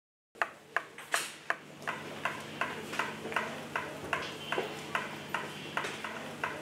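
A clock ticking evenly, about three ticks a second, over a faint steady low hum.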